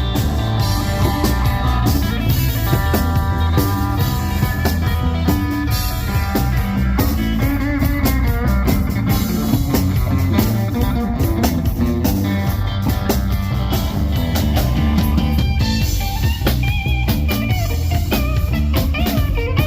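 Live blues-rock band playing: electric guitar over bass guitar and drum kit.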